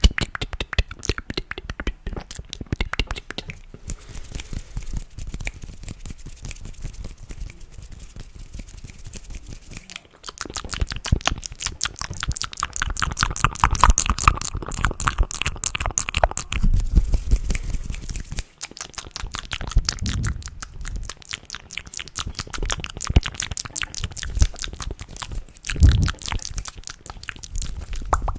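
Close-miked ASMR mouth and hand sounds: a fast, dense stream of small wet clicks, pops and smacks, which grows louder and busier about ten seconds in.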